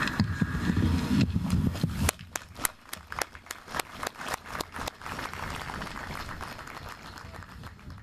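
Applause from a small crowd: scattered individual hand claps starting about a second in, thinning out over the following seconds. In the first two seconds a low rumble runs under it and stops abruptly.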